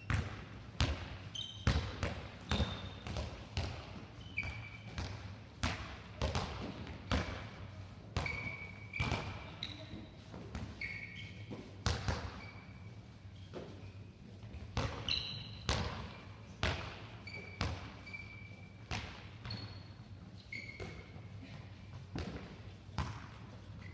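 Handballs bouncing off a sports-hall floor and being caught and thrown, several impacts a second with hall echo, mixed with short high squeaks of players' shoes on the floor.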